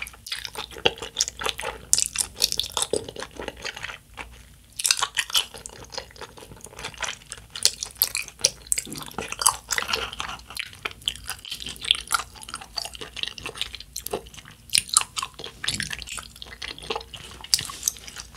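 Close-miked eating of tteokbokki: wet chewing and slurping of rice cakes and glass noodles in sauce, made of quick, irregular mouth clicks and smacks.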